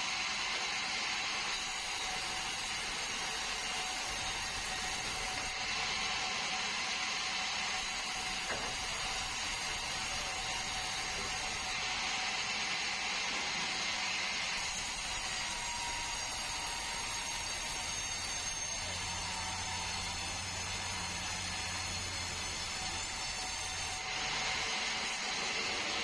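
Sawmill saw cutting a bengkirai hardwood log: a steady high hiss and whine with no pauses, shifting in tone several times, with a low hum joining in for a few seconds near the end.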